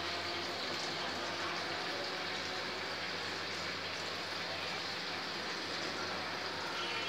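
Water running steadily from an RO water purifier's faucet into a plastic cup, a continuous splashing hiss.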